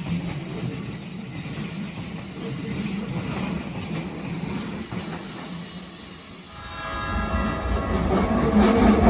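Keikyu Line electric train running over a level crossing, its sound rising from about two-thirds of the way in as a train comes close. Several steady high tones join near the end.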